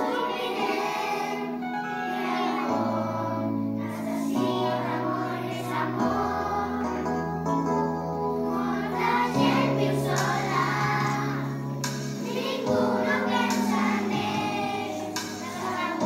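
A children's choir of young schoolchildren singing a song together over instrumental accompaniment, whose low bass notes change every second or two.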